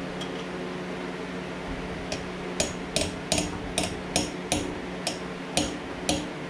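Hammer striking metal in a quick run of light blows, about three a second, starting about two seconds in, as in tapping a tool into a broken bolt.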